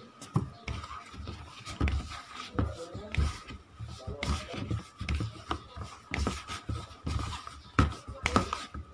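Hands kneading tapioca-starch dough in a plastic bowl: irregular soft thumps about twice a second with sharper clicks here and there, as the dough is worked until smooth and no longer sticky.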